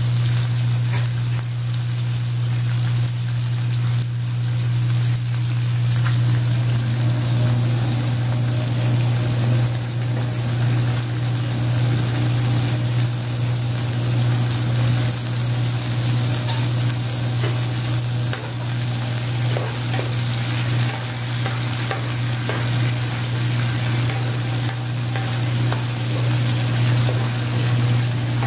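Onions, garlic and canned sardines in tomato sauce sizzling as they fry in an aluminium pan, with a spoon scraping and stirring in the pan near the end. A steady low hum runs underneath.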